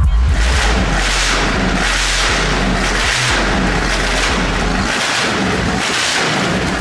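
Coates spherical-rotary-valve V8 engine running on a test stand, a loud dense noise that surges about twice a second.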